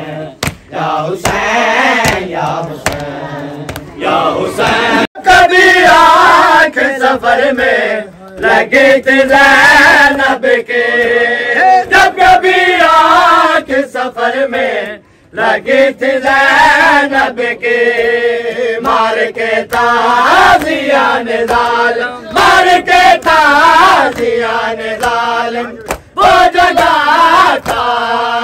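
A man chanting a noha, a Muharram lament, in long sung phrases broken by brief pauses, with other voices chanting along. Sharp slaps of hands beating on chests (matam) cut through the chant.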